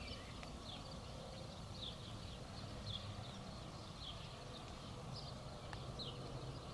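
Faint outdoor ambience: a small bird chirping repeatedly, short high falling chirps about once a second, over a faint low steady rumble.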